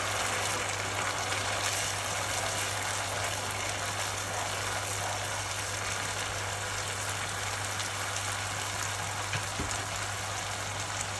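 Arborio rice simmering in hot saffron beef stock in a frying pan, a steady sizzling hiss, over a steady low hum.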